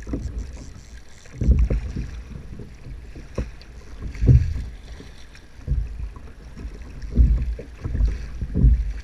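Wind and choppy water buffeting a kayak-mounted microphone: low rumbles that come in about six irregular gusts over a faint steady hiss.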